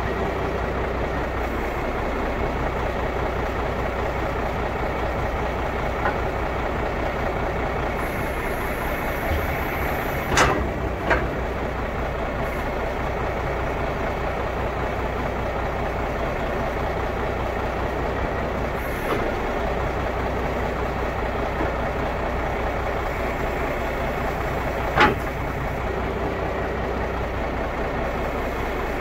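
Heavy truck engine running steadily, with sharp knocks twice about ten and eleven seconds in and once more about twenty-five seconds in.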